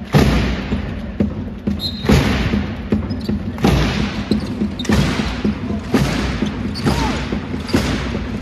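Basketball arena crowd noise, loud and steady, with strong echoing thumps about once a second or so.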